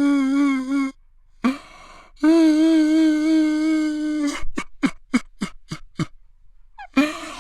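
Man crying loudly: a wavering wail that breaks off, a long held wailing note, then a quick run of short gasping sobs, and another wail rising near the end.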